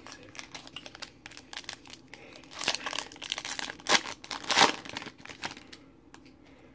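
Crinkling foil wrapper of a Panini Prizm basketball card pack being handled and torn open, a run of irregular crackles with louder rustles about two and a half, four and four and a half seconds in.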